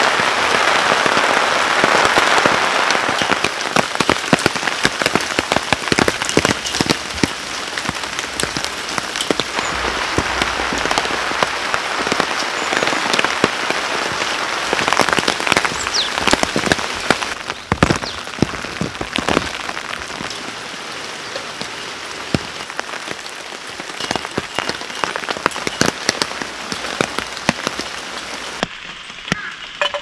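Heavy rain falling on a silnylon camping tarp and a wet wooden deck: a dense steady hiss with many close, sharp drop hits. The rain eases slightly about halfway through.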